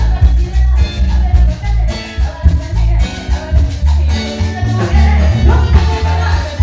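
A live Latin dance band playing, with a heavy bass line and steady percussion.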